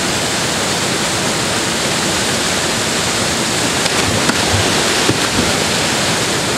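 Close waterfall: creek water pouring over a low rock ledge into a churning pool, a steady full rush of white water.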